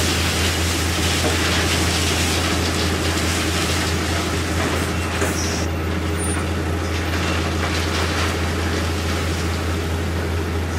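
Tipper truck's engine running steadily with a low hum, while a load of wood chips slides off the raised dump bed and pours out past the swung-open tailgate in a continuous even rush of noise.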